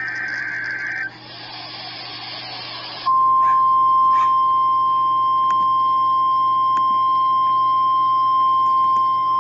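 NOAA Weather Radio alert signalling over the air. It starts with the last burst of a SAME digital header, a warbling data screech, followed by about two seconds of radio hiss. About three seconds in, the steady single-pitch 1050 Hz warning alarm tone begins and holds; this tone announces a warning broadcast.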